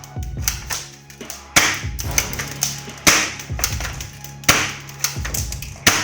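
Background music with a steady beat: a low bass line, kick thumps, and a sharp clap-like hit about every second and a half.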